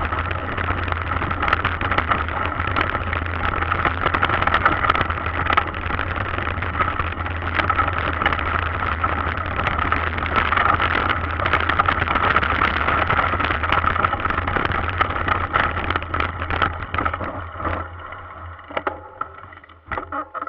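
Mountain bike rolling fast down a gravel dirt track, heard through a bike-mounted camera: a steady rush of wind and tyre rumble with frequent sharp clicks and rattles over stones. It dies down near the end as the bike slows.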